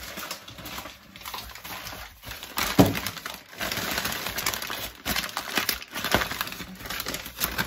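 Kraft paper bag rustling and crinkling as it is handled and opened, with a sharper crackle about three seconds in.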